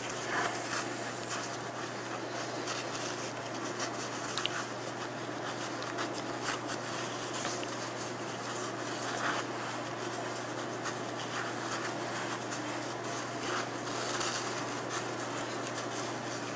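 Soft rustling and crinkling of bandage wrap and an absorbent pad as a cat's splinted foreleg is bandaged by hand, with small irregular ticks throughout over a steady low hum.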